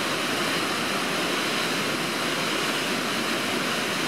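A river waterfall with its white water rushing steadily and evenly, without a break.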